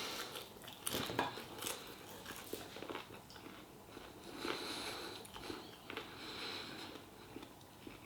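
A person chewing and biting food close to the microphone, with several sharp clicks in the first few seconds.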